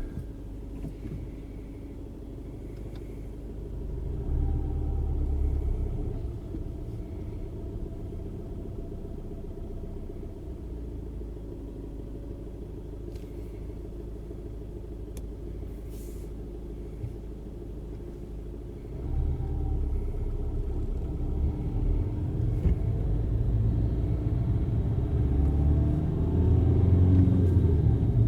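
2011 Skoda Superb's engine running with an odd whirring, grinding noise from the clutch, which the owner likens to a concrete cutter's rotating disc. The rumble swells about four seconds in, settles, then grows louder again from about two-thirds of the way through, with faint tones gliding up and down.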